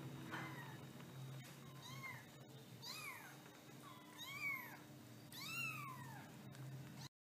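Young kittens mewing: about six short, high mews, each rising then falling in pitch, the loudest near the end, with a few faint clicks. The sound cuts off suddenly just before the end.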